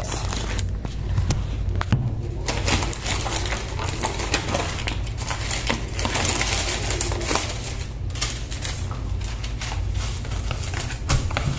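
White paperboard packaging boxes handled on a table: a run of paper rustles, scrapes and light knocks, over a steady low hum.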